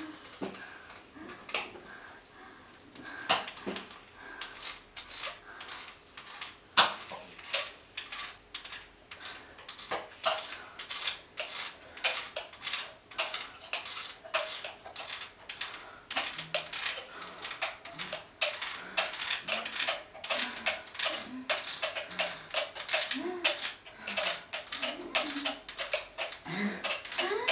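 Irregular clicking and clinking of small hard objects: a few sharp clicks in the first half, then several a second, growing denser toward the end. Faint voices sound underneath.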